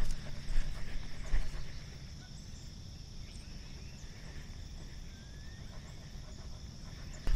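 Irregular soft thumps and rustling for about the first second and a half, then a quieter stretch. A steady high-pitched hum runs underneath throughout.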